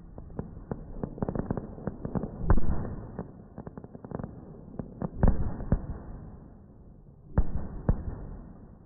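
Fireworks going off: a quick, irregular string of crackles and pops, with loud bangs about two and a half seconds in, again a little past five seconds, and near seven and a half seconds.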